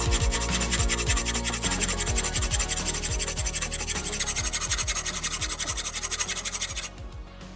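Hand file rasping back and forth on a metal part clamped in a bench vise, in quick, even strokes that stop about seven seconds in. Background music with a bass line plays under it.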